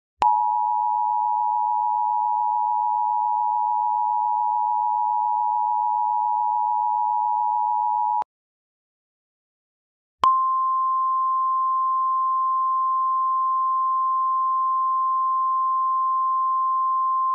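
Emergency Alert System two-tone attention signal, two steady tones sounded together for about eight seconds and then cut off. After a two-second silence a single steady NOAA Weather Radio 1050 Hz warning alarm tone begins, announcing an emergency warning message.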